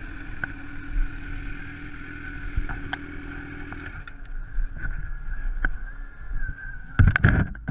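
Motorcycle engine running steadily under rumbling road and wind noise, with a few sharp clicks and a short loud burst of noise near the end.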